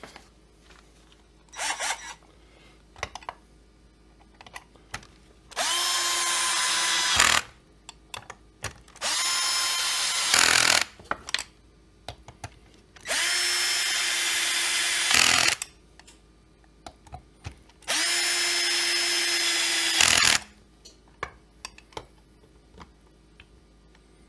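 Cordless drill-driver running in the crankcase screws of an MS660-clone chainsaw kit, in four runs of about two seconds each. Each run spins up to a steady whine and ends with a sharp click, and there is a shorter burst early on and small knocks between the runs.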